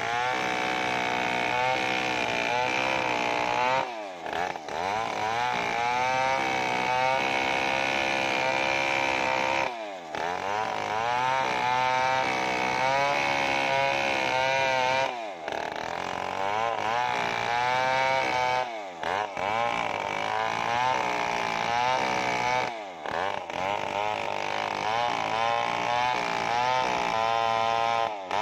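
Stihl 070 two-stroke chainsaw at high revs, ripping a kenanga log lengthwise with an Oregon cross-cut chain filed for ripping. The engine note wavers under the cut and five times dips briefly, then climbs back.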